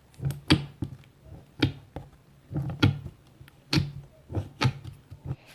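A dozen or so short, sharp taps at an irregular pace.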